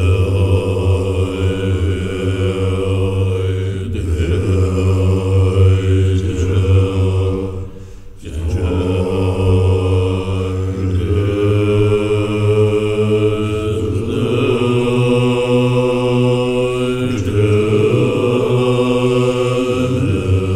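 Tibetan Buddhist monks chanting in deep, low voices, held on one steady note in long phrases with short breaks for breath, the clearest about eight seconds in.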